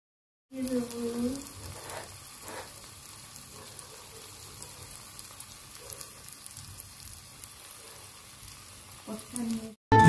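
Vegetable curry sizzling steadily in oil in a tiny steel pan, a fine crackling hiss. There is a short pitched, wavering sound about half a second in and again just before the end.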